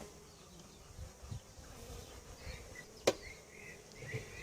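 Honey bees buzzing around an open hive, with individual bees' wavering buzz growing plainer toward the end. A single sharp knock about three seconds in.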